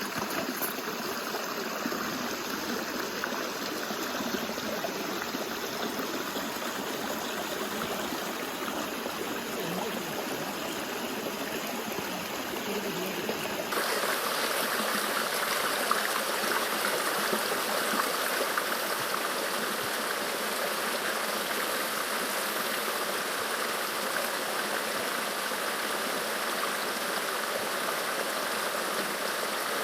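Valley stream water running over rocks in a steady rush, changing abruptly to a slightly louder, brighter rush about fourteen seconds in.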